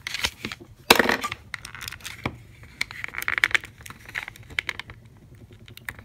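Plastic shell of a power bank being pried apart by hand: a run of clicks, creaks and snaps as the snap-fit clips give way, the loudest crack about a second in.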